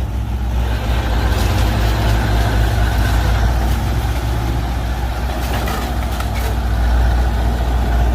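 Heavy diesel earthmoving machinery running steadily, with a deep, even engine note.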